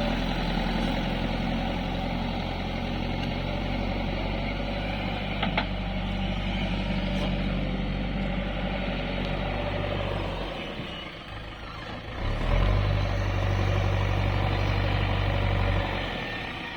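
Diesel engine of a JCB construction machine running steadily. It falls away about ten and a half seconds in and comes back louder a couple of seconds later.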